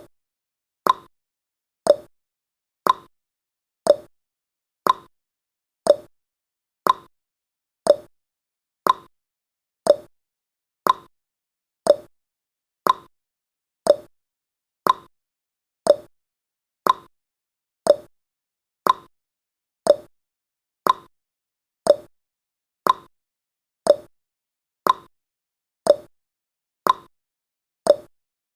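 Countdown timer's ticking sound effect: one short, sharp tick each second, dying away quickly, with silence between ticks.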